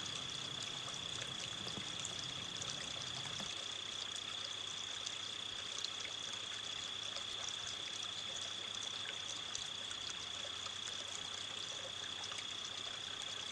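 Steady hiss with a constant faint high-pitched whine, the noise floor of the recording; a low hum under it stops about three and a half seconds in.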